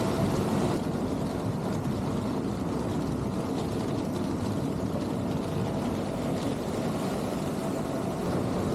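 CLAAS Lexion 8900 combine harvester running steadily while harvesting maize: a constant engine and machinery drone.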